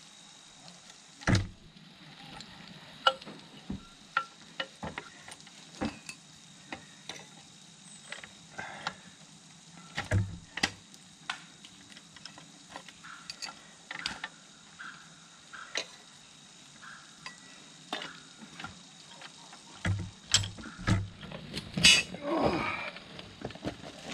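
Irregular metal clinks and knocks as spring-compressor hooks and their threaded rods are handled and fitted against a strut's coil spring, with a cluster of louder clanks and a short rattle near the end.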